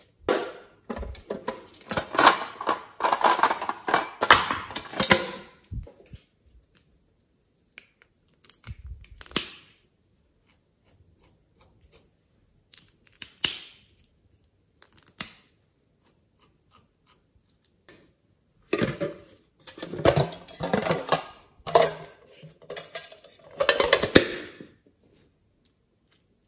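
Small plastic clay piping tubes handled and their caps worked open: two long bursts of clicking and rattling plastic, with scattered single clicks between.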